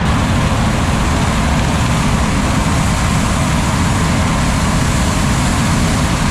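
Hot air balloon propane burner firing steadily into the envelope's mouth during hot inflation, a loud even rush. Under it runs the small gasoline engine of the inflator fan.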